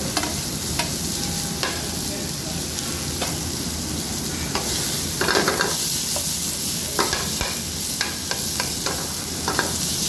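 Potato chunks, onion and garlic sizzling steadily in hot oil in a non-stick frying pan, while a metal spoon stirs them with repeated scrapes and clicks against the pan. The loudest scrape comes about five seconds in.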